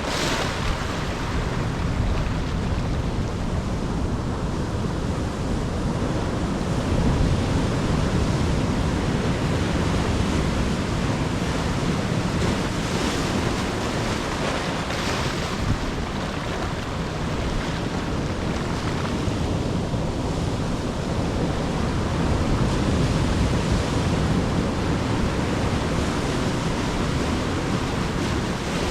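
Pacific surf breaking and washing on the shore, swelling and easing in waves, with a low wind rumble on the microphone.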